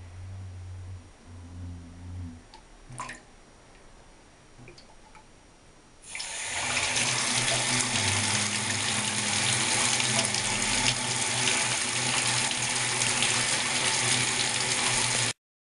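Bath mixer tap turned on about six seconds in: water rushes out steadily and loudly, then stops abruptly. The mixer's diverter button is raised, so the water flows out through the shower hose outlet, with the hose not attached.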